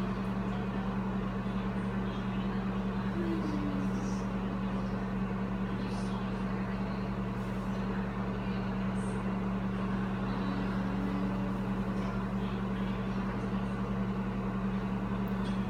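Microwave oven running on a low power setting: a steady, even electrical hum with fan noise.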